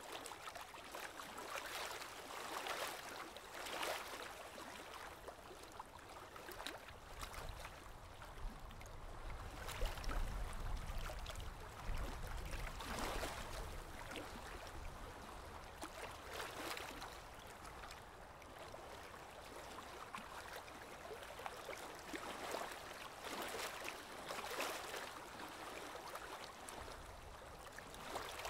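Aquarium water bubbling and gurgling steadily, rising in irregular surges every second or two, with a low rumble for a few seconds around the middle.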